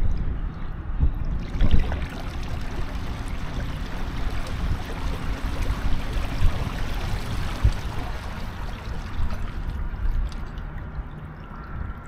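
Water rushing and splashing along the hull of a fishing kayak under way, over a low rumble; the wash eases off near the end.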